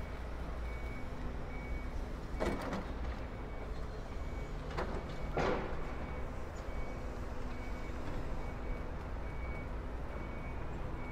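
Steady low rumble of street traffic with a faint high beep repeating about once a second from a vehicle's reversing alarm. Two short, louder noisy swells come about two and a half and five and a half seconds in.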